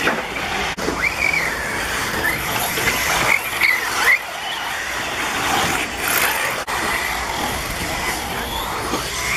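Radio-controlled off-road cars running on a dirt track: a high-pitched motor whine that glides up and down in pitch with the throttle, over a steady hiss of tyres on dirt.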